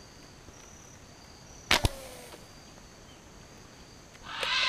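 Fishing slingshot fired: one sharp double snap of the latex bands about two seconds in, with a brief ring after it. A louder, rougher sustained sound starts near the end.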